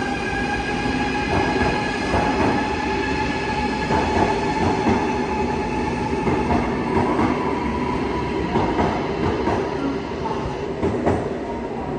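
Sapsan (Siemens Velaro RUS) high-speed electric train pulling out past the platform. It makes a steady whine that rises slowly in pitch as it gains speed, over a rumble and irregular clicks of the wheels on the rails.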